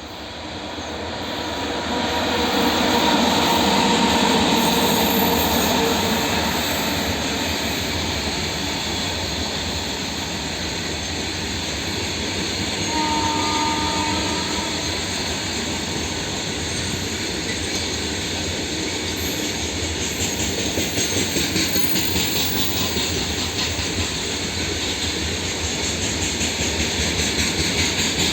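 Indian Railways goods train running past on a curve. The noise swells over the first few seconds as the train comes close, then the wagons rumble steadily past. There are brief wheel squeals about halfway through, and a regular clickety-clack of wheels over rail joints near the end.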